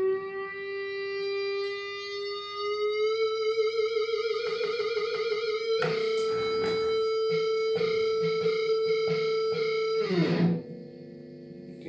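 Electric guitar note held on without fading by a Fernandes-style sustainer pickup in an Ibanez RG. The single note bends slightly upward and wavers with vibrato a few seconds in. It turns brighter and fuller around the middle, then falls in pitch and stops near the end.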